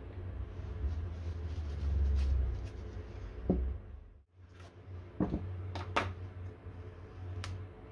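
Light clicks and taps of small metal model-engine parts being handled and set down on a wooden workbench, a handful of separate knocks, over a steady low hum. The sound drops out briefly about four seconds in.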